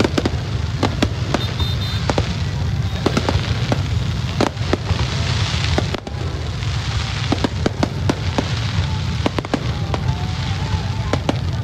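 Aerial fireworks display: many sharp bangs of shells bursting, coming at irregular intervals, over a steady low rumble.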